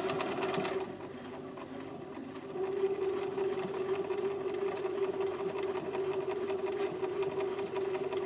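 Domestic sewing machine running steadily, stitching through felt and zipper tape: an even hum with a rapid patter of needle strokes, a little quieter between about one and two and a half seconds in.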